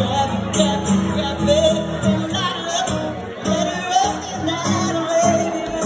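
Live band playing a slow song: electric guitars with a voice singing the melody over sustained chords.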